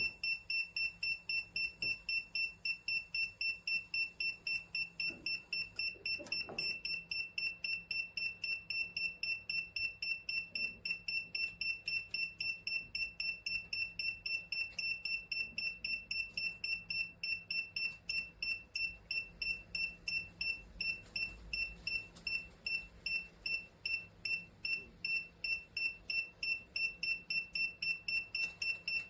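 Kiprim handheld gas leak detector sounding its audible alarm: a rapid, steady run of high-pitched electronic beeps, several a second. The alarm signals that the sensor is picking up combustible gas.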